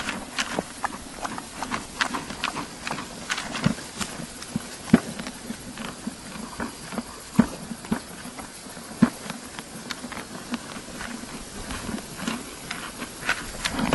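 Horses, a Tennessee Walking Horse and an appendix Quarter Horse, moving about close up: irregular knocks and clicks, a few of them sharp and loud, at uneven intervals.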